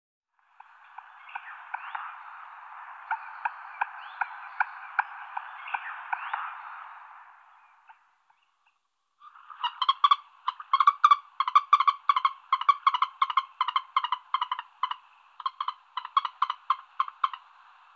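Frogs croaking. A buzzy run of clicking croaks goes on for several seconds, then breaks off. After a short pause comes a longer, fast series of pulsed croaks.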